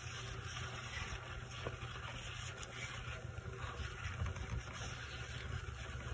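Faint rubbing and scraping as parts of a graphics card are wiped and scrubbed clean, with a few light clicks over a steady low hum.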